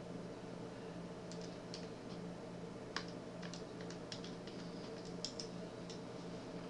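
Faint, irregular clicks of keys being tapped, typing a calculation, over a steady low electrical hum.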